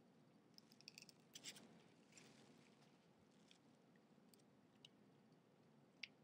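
Faint crackling and small wet clicks of a pomegranate being broken apart by hand, its seeds prised loose from the rind and pith: a quick cluster of crackles about a second in, then a few single clicks.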